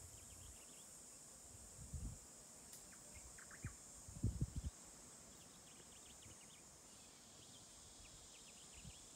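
Quiet bush ambience: a steady high insect hiss with brief, high bird chirps now and then. A few soft low thumps come about two seconds and about four and a half seconds in.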